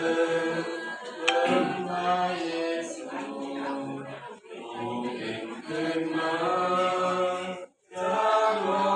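A group of voices singing a hymn together without instruments, in long held notes. The singing breaks off briefly near the end and starts again. A sharp click with a short tone comes about a second in.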